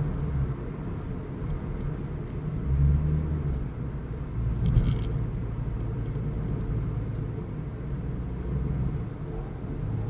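Motor vehicle running with a steady low rumble, with light scattered rattles and a brief louder rattle about five seconds in.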